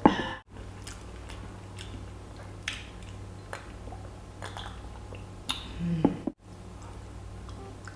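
Person drinking water from a glass: quiet swallows and mouth clicks over a steady low hum. A louder short sound comes at the very start and another about six seconds in, each cut off by a sudden dropout.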